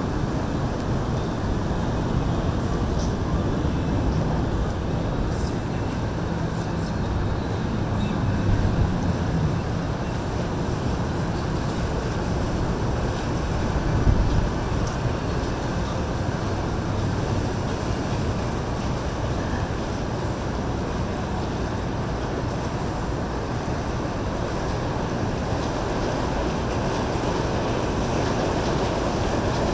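Boat engines running amid rushing water and wind on the microphone, a steady mix of noise with a faint low engine hum in the first third and a brief low thump about halfway through.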